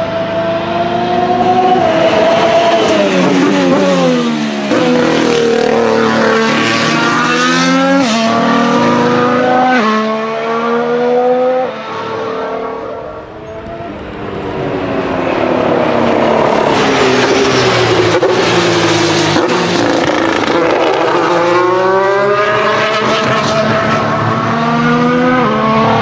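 Red Bull Formula 1 car engine at racing speed, high-revving. The pitch falls as it slows, then climbs through a run of quick upshifts, each shift a sudden drop. After a brief quieter lull near the middle it slows again and climbs through the gears once more.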